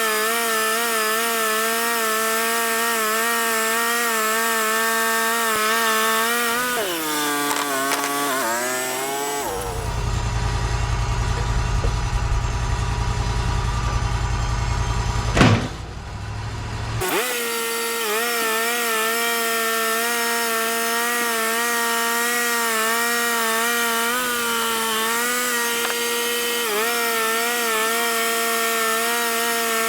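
Wood-Mizer portable band sawmill running through a black walnut log, its steady motor note sagging in pitch under load about seven seconds in. For several seconds in the middle the sound turns into a low steady rumble with one sharp loud burst and a falling sweep, then the saw's steady note comes back.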